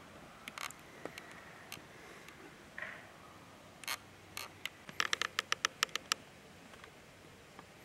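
Scattered single sharp clicks over a faint steady hiss. About five seconds in, a quick, evenly spaced run of about ten louder clicks lasts roughly a second.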